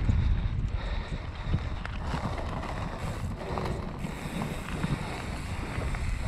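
Wind buffeting an action camera's microphone while a mountain bike rolls along a dirt singletrack, with scattered small knocks and rattles from the bike going over the trail.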